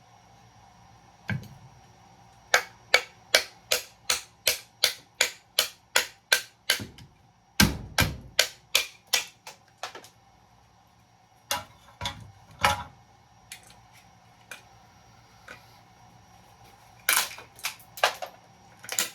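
Hammer blows on metal while breaking apart a circuit breaker for scrap: a steady run of sharp strikes, about two or three a second, then scattered single blows.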